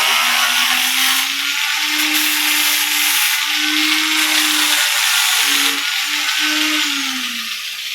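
Angle grinder grinding the paint off a dented metal panel, a loud steady grinding with the motor's pitch shifting as it is pressed, then the motor winds down near the end.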